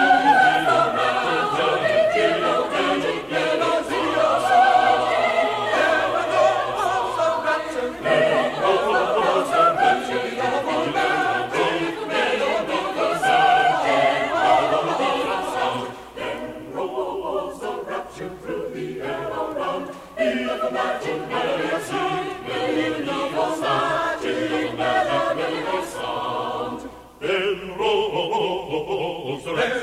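Choir singing a part-song, the voices in several parts moving and overlapping, with a short break in the sound near the end.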